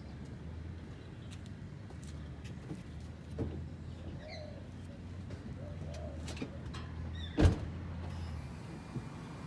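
A car door shutting with a single loud thump about seven seconds in, over a low steady hum. A dove coos faintly twice before it, with light bird chirps.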